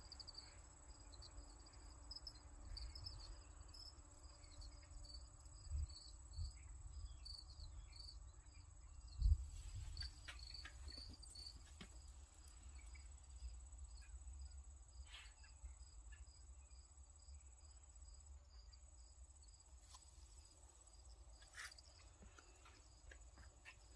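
Faint crickets chirping in a regular rhythm, about two chirps a second, over a steady high thin trill. A low rumble runs underneath, with a brief thump about nine seconds in.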